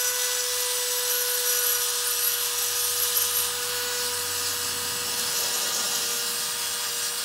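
Dremel rotary tool running at a steady high whine while its grinding bit works back and forth inside a cast iron cylinder head's intake port, with a hiss of metal being ground away, gasket matching the port to the intake gasket.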